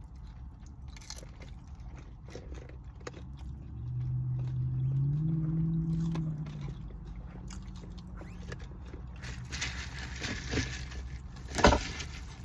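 Food being chewed and crunched, with a hummed, rising "mmm" from about four to six and a half seconds in and a single sharp knock near the end, over a steady low hum.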